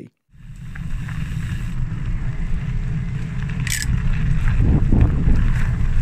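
A Specialized Tero 4.0 EQ e-bike rides along a gravel trail. Its thick knobbly tyres and fenders make a steady, loud rumble and rattle that builds up over the first second. A sharp tick comes just before four seconds in.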